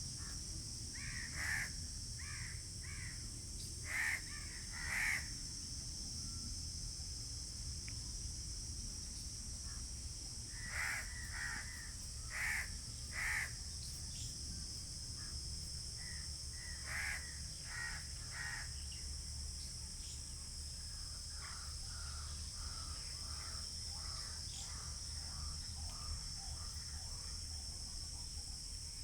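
Crows cawing in short runs of calls, with a louder group near the start and fainter, quicker calls late on. Beneath them runs a steady high insect drone.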